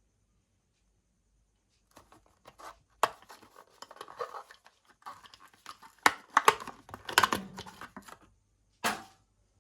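Hot Wheels blister-card packaging being torn open: card ripping and plastic crinkling, with several sharp snaps. It starts about two seconds in and ends with one short rip near the end.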